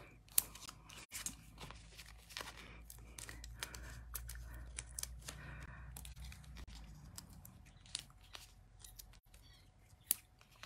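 Foam adhesive dots (dimensionals) being peeled from their backing sheet and pressed onto a cardstock panel: a run of small crackles and ticks of paper and backing being handled, with one sharper tick near the end.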